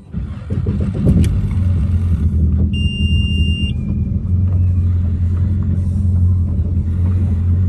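Boat engine being started: a click, a brief crank, then it catches and settles into a steady idle. A steady electronic beep sounds for about a second, roughly three seconds in.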